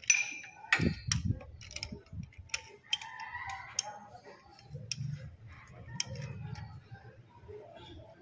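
Scattered clicks and knocks as a Toyota K-series engine's crankshaft is turned by hand to bring the crank pulley's notch to the 0° (top dead centre) timing mark, loudest in the first second or so.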